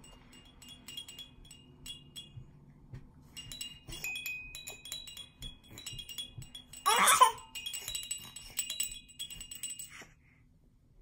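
Small bells in a baby's plush rattle toy tinkling in quick, irregular shakes, stopping about ten seconds in. A short, loud squeal from the baby cuts in about seven seconds in.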